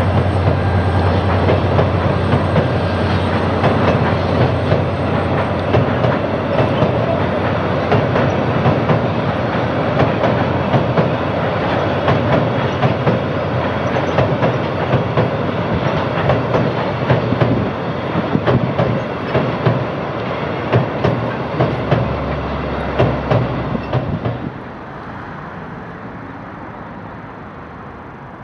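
Freight train's livestock wagons rolling across a rail bridge: a steady rumble with rhythmic clickety-clack of wheels over the rail joints. About three-quarters of the way through, the sound drops suddenly to a much quieter background.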